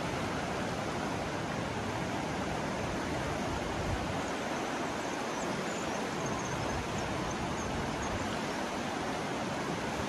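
The Ganges running fast over a shallow, stony riverbed: a steady, even rushing of water.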